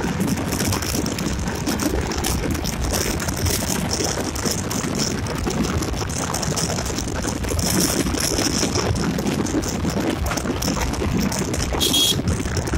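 Yamaha Gladiator motorcycle on the move: steady wind rush over the microphone, over engine and road noise. A brief high beep sounds near the end.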